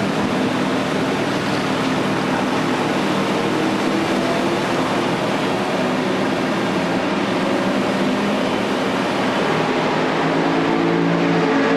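Ford GT40 race car's V8 engine idling steadily, an even low note with a hiss of noise over it, the note firming a little near the end.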